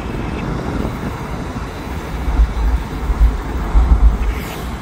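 Norfolk Southern diesel freight locomotive running as the train creeps slowly closer. Gusts of wind buffet the microphone from about two seconds in, the loudest thing heard.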